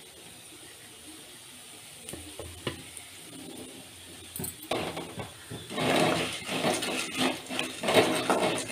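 Mustard seeds and chana dal frying in sesame oil in an aluminium kadai for a tempering: a faint sizzle with a few clicks that, about halfway through, turns into loud sizzling and crackling, with stirring against the metal pan. The dal is just turning golden.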